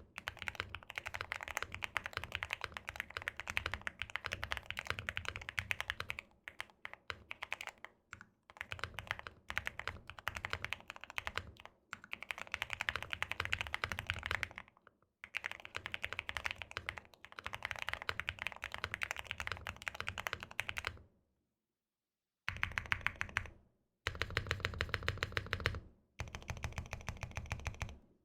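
Fast, continuous typing on a custom mechanical keyboard with lubed Everglide Aqua King linear switches on a polycarbonate plate, with case, plate and PE foam. The keystrokes come in long runs with brief pauses, then, near the end, a few shorter bursts separated by abrupt cuts to dead silence.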